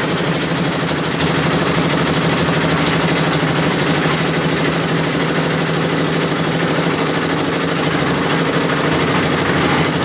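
Concrete mixer-and-lift machine's engine running steadily, with a rapid, even beat.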